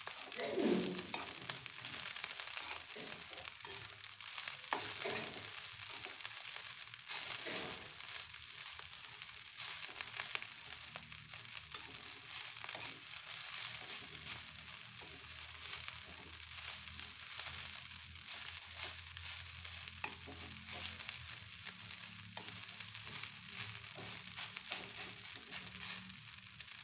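Fried rice sizzling in a metal wok over a gas flame while a metal spoon stirs and tosses it, with frequent scrapes and clinks of the spoon against the pan over a steady frying hiss.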